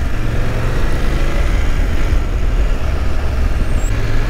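Motorcycle engine running steadily on the move, with a heavy low wind rumble on the microphone.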